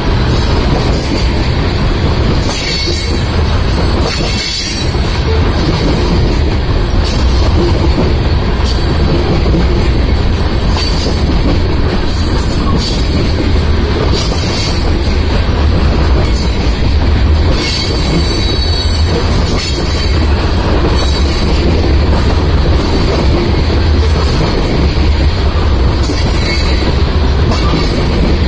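Loaded covered hopper cars of a freight train rolling past close by: a steady, loud rumble of steel wheels on rail, with frequent clicks as wheels cross rail joints.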